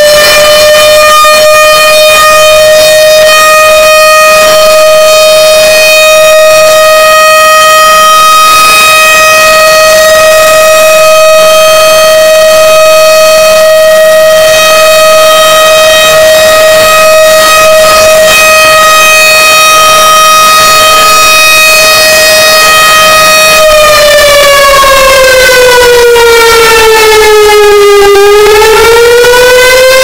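Tornado siren sounding a steady wail, boosted so loud that it is heavily distorted. Near the end its pitch falls away, then rises again.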